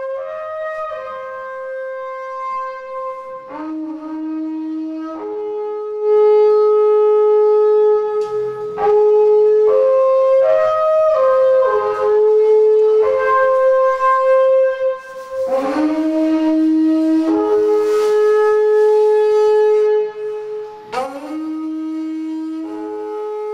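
Alphorn-type long wooden horn playing a slow melody of long held notes, the middle phrases louder than the opening and closing ones.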